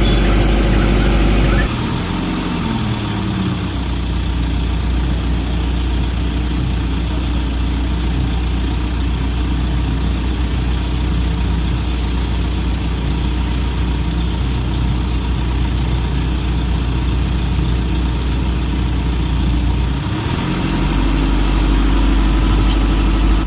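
Street-light maintenance truck's engine running. Its speed drops about two seconds in, it runs steadily at the lower speed, then it speeds up again near the end.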